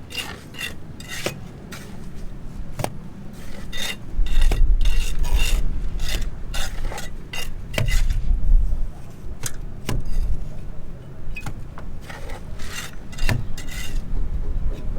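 Repeated scraping and clinking of metal on a hard surface, with a low rumble starting about four seconds in.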